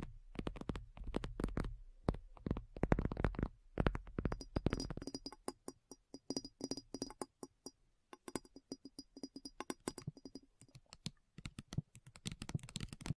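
Channel-logo intro soundtrack: a string of sharp clicks and knocks, with low thumps in the first few seconds, then quick, even clicks under a high ringing tone.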